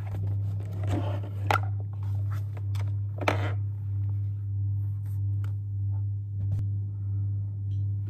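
Handling sounds of a laptop and its charger cable being moved on a desk: a few scrapes and knocks, the loudest about one and a half and three seconds in, over a steady low hum.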